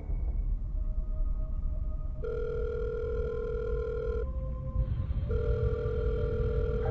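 Ringback tone of an outgoing phone call heard at the caller's ear: two rings of about two seconds each with a short pause between, over a steady low rumble.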